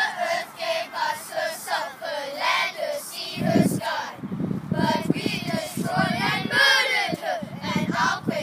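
A group of children singing together in unison, with a low rumble joining about three and a half seconds in.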